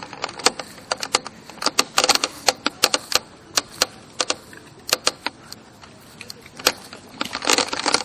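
Irregular sharp plastic clicks and rattles, a few a second, from a Nerf Quadshot blaster jostling as it is carried. The clicks thin out past the middle and crowd together again near the end.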